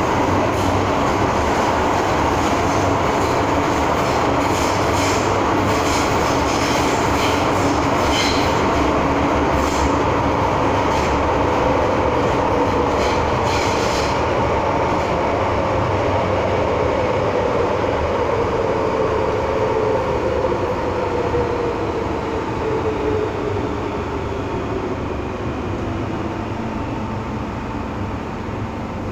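Hong Kong MTR M-Train heard from inside the passenger car while running in a tunnel: a steady rumble of wheels on rail, with rattling over the first half. A traction-motor whine falls steadily in pitch over the second half as the train slows for the next station.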